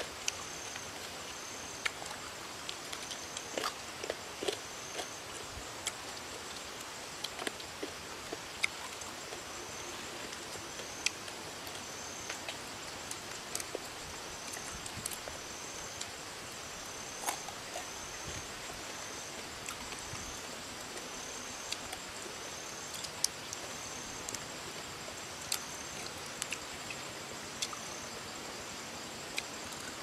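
Short, sharp crunches and clicks of fried diving beetles (Dytiscus) being chewed and picked from a pile, scattered irregularly. Behind them a short high chirp repeats about every second and a half over a steady hiss.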